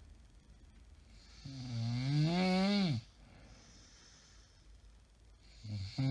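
A woman snoring loudly in her sleep, two drawn-out snores about four seconds apart. Each snore has a buzzing pitch that rises slightly and then drops away as it ends, with a faint breath between them.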